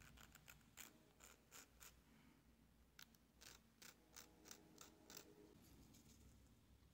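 Faint, quick scraping strokes of a nail file against the plastic tab of a clear gel nail extension tip, filing the tab off. The strokes come in two runs with a short pause between them.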